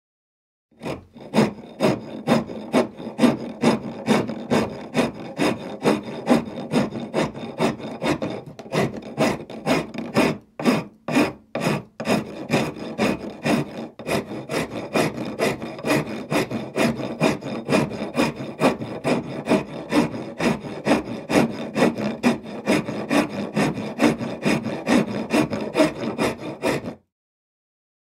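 A file rasping back and forth across wood in quick, even strokes, with a short break near the middle.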